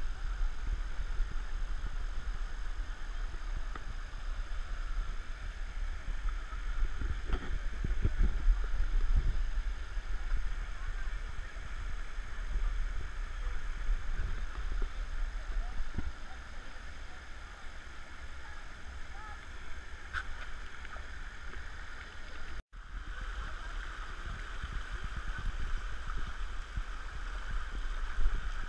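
Steady rush of flowing canyon stream water, under a heavy low rumble on the microphone. The sound cuts out for an instant about three-quarters of the way through.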